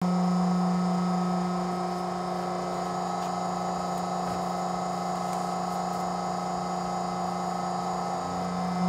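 Swing-arm clicker die-cutting press running with a steady electric hum, with a few faint ticks as the board is handled.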